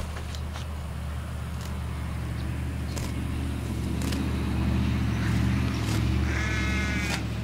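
Pickup truck engine idling: a steady low hum that swells around the middle and eases near the end. Faint rustles and clicks come from a round hay bale's net wrap being handled.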